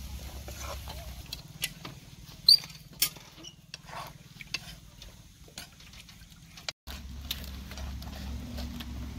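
Metal spatula clattering and scraping in an iron wok as cut eggplant and potato are dropped in and stirred into frying vegetables: scattered light clicks and knocks, with two sharp high clinks a couple of seconds in that are the loudest sounds.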